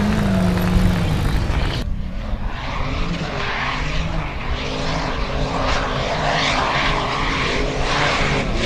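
Formula Offroad buggy's engine revving hard, its pitch rising and falling. The sound changes abruptly about two seconds in, after which the engine keeps revving over a rush of noise as the tyres churn through mud and water.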